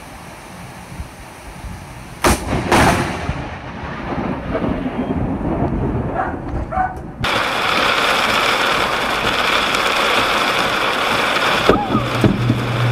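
Close lightning strike: a sharp double crack of thunder about two seconds in, trailing off into rumble. Later comes a steady loud hiss of heavy rain, and another sharp thunder crack near the end.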